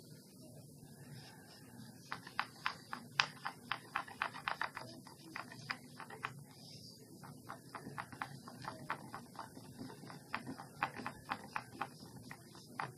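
Wooden stick stirring paint in a small white bowl, clicking against the bowl's sides in quick runs of several clicks a second, twice, while a colour is mixed.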